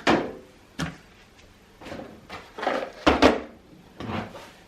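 Knocks and clunks of jars and food containers being set down and moved about on pantry shelves, half a dozen in a row, the loudest about three seconds in.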